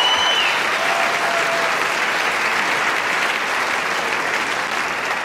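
Audience applauding, steady and easing off slightly toward the end.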